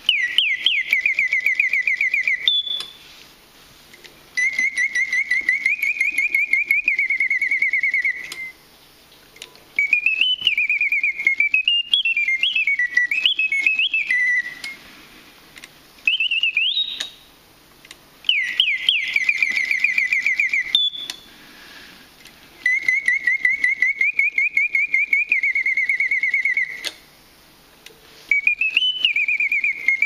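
Antique German clockwork singing bird automaton whistling its song: a bellows-blown whistle gives quick upward slides and long rapid warbling trills in several phrases, with pauses of a second or two between them. The faint whirr of the clockwork movement fills the pauses, and the same sequence of phrases starts over about halfway through.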